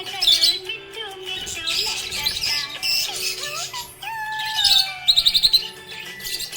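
Budgerigar chirping and twittering over background music. A little past the middle comes a quick run of about half a dozen sharp chirps.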